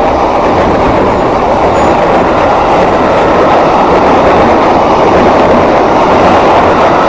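Electric multiple-unit commuter train passing close by at speed: a loud, steady rush and rumble of steel wheels on the rails as the cars go past.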